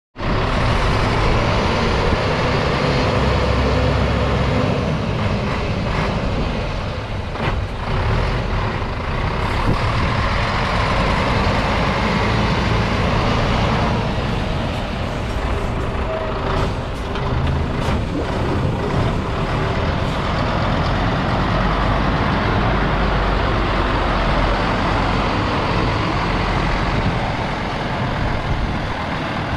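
MAN 19.343 tipper truck's six-cylinder diesel engine running steadily as the truck drives and manoeuvres slowly, with a few short air hisses from its brakes.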